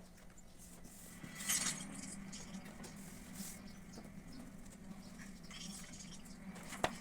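Light rustling and scraping as paper and cardboard are handled, with a louder rustle about a second and a half in and a sharp click near the end, over a steady low hum.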